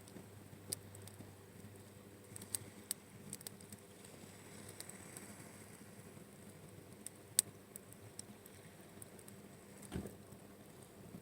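Wood campfire crackling, with scattered sharp pops over a low hiss and one louder pop about two-thirds of the way through. A dull thump comes near the end.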